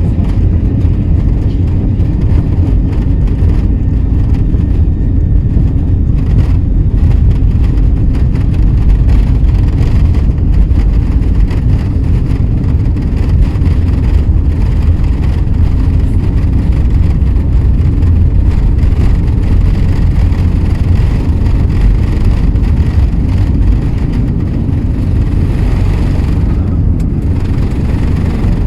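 Steady, loud low rumble of an airliner heard from inside the cabin: engine and airflow noise.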